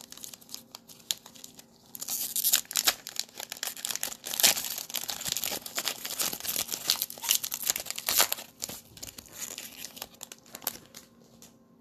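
Trading-card pack's foil wrapper being torn open and crinkled by hand: a dense run of crackling that thins out near the end.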